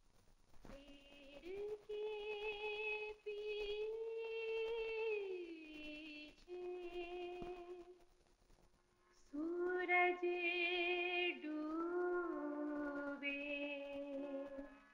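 A woman singing a slow wordless melody in long held notes with a slight vibrato. One note slides down about five seconds in, and she pauses briefly around eight seconds before going on.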